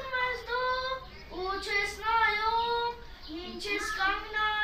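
A boy singing unaccompanied, holding long, steady sung notes in short phrases with brief breaths between them.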